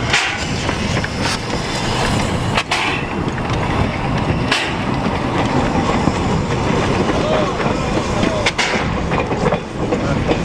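Kč4 narrow-gauge (750 mm) steam locomotive running past and pulling away, a steady rumble of the engine and wheels on the track broken by a few sharp knocks.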